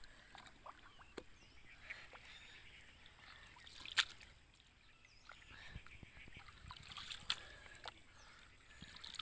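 Hands digging and scooping mud in shallow field water: faint wet squelches and small splashes, with a sharper splash about four seconds in as a clump of mud is lifted out.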